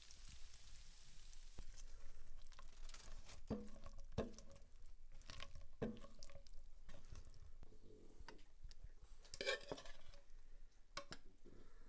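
Pasta being stirred and served from a frying pan: soft stirring and scraping with a few sharp clinks of utensils against the pan and a stoneware bowl, some ringing briefly, over a faint hiss.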